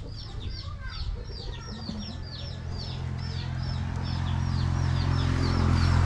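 A bird, likely a chick, chirps high and fast, about five short falling chirps a second, without a break. From about halfway a low motor hum grows louder and is the loudest sound by the end.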